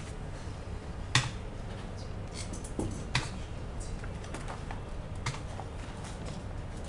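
Computer keyboard keys clicking at an irregular pace while typing, with two louder keystrokes about one and three seconds in, over a low steady hum.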